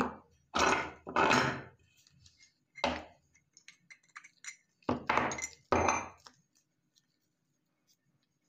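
Metal parts of a meat grinder knocking and clinking as it is taken apart, with the cutting plate and auger pulled out and handled. There are about six sharp knocks, each ringing briefly: several in the first two seconds, one near three seconds and two around five to six seconds.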